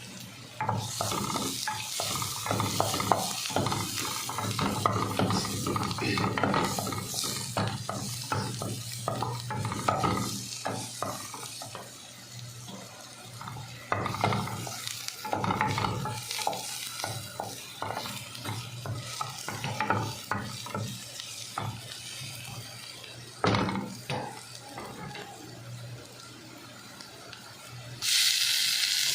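A utensil stirring and scraping chicken frying in a pan, with irregular clatter against the pan over a sizzle. Near the end a louder hiss sets in.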